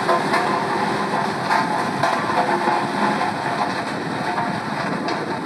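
Engine-driven machinery running steadily with a continuous rattling clatter.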